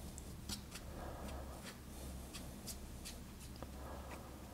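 Faint scratching and scattered light ticks of a paintbrush spreading wood glue over wooden speaker-cabinet panels, over a steady low hum.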